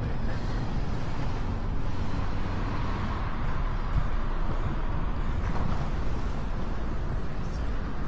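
City street traffic: a car passes along the road, swelling and fading about two to four seconds in, over a steady low rumble of wind on the microphone.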